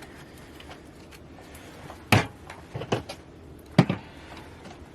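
Four sharp knocks of hard containers being set down on a table, the last two close together.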